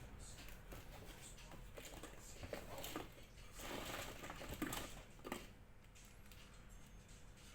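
Faint rustling and scattered light clicks of a small object being handled, with a cluster of louder clicks between about two and a half and five and a half seconds in.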